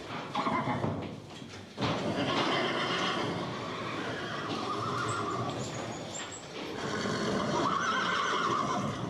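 Horse neighing and whinnying, several calls in a row, with a loud one starting suddenly a little under two seconds in.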